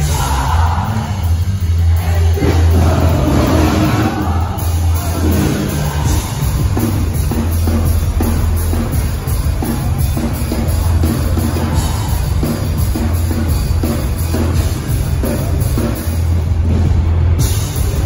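Live hardcore punk band playing loud, with heavy bass, distorted guitars and regular drum strokes. Voices sing over it in the first few seconds.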